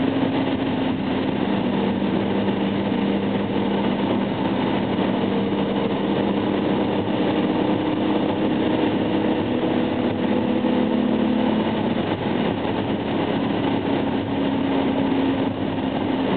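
Inside the cabin of a BMW M5 cruising at a steady speed: a constant engine hum over tyre and road noise. The engine note holds steady, with a slight change in its tones about twelve seconds in.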